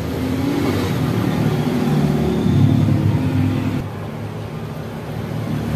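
A motor engine running nearby, its pitch shifting as if revving, growing louder toward the middle and dropping off sharply about four seconds in.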